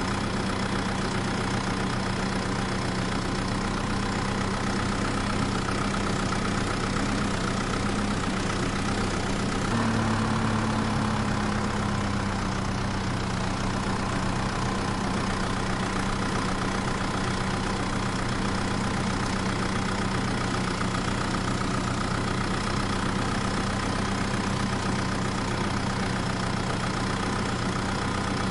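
A vehicle engine idling steadily. About ten seconds in, its pitch steps up briefly and then eases back down.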